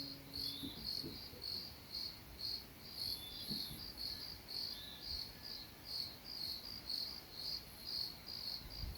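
Crickets chirping steadily in an even, regular rhythm of a little over two high-pitched chirps a second.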